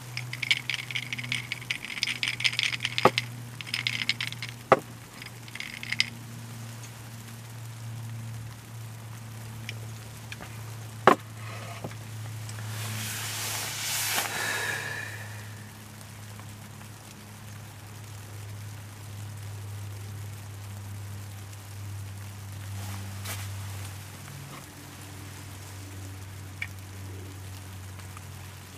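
Ice cubes clinking and rattling against the sides of a glass of beer as it is swirled by hand, with bright ringing clinks over the first six seconds. Then a few single clicks follow, over a steady low hum.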